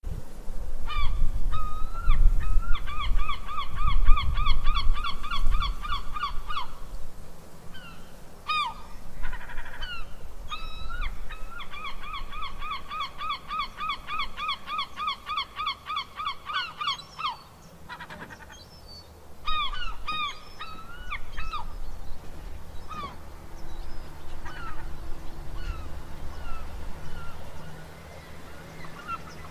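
Seagulls calling: single yelps and two long, rapid runs of repeated yelping notes. A low rumble underneath is strongest in the first few seconds.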